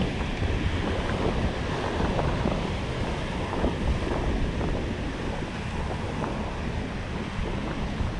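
Ocean surf washing over the rocks of a jetty, with wind buffeting the microphone in a steady low rumble.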